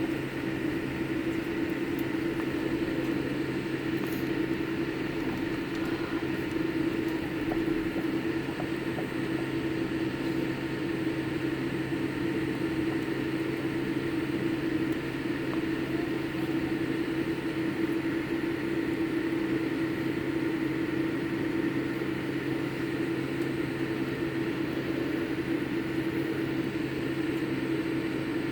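Steady hum of a Boeing 787 airliner, heard as a constant drone that neither rises nor falls in pitch or loudness.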